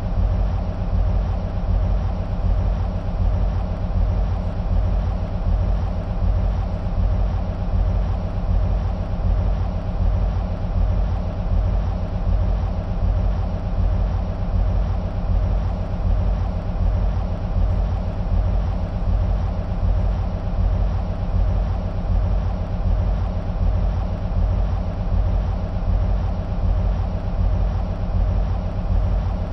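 EMD SW1500 switcher locomotives' V12 two-stroke diesel engines idling, a steady low rhythmic throb.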